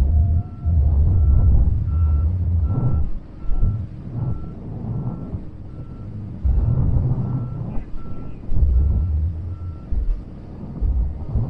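Backup alarm on maintenance-of-way equipment sounding an evenly repeated single-pitched beep while the machine reverses, stopping about ten seconds in. A loud low engine rumble runs underneath.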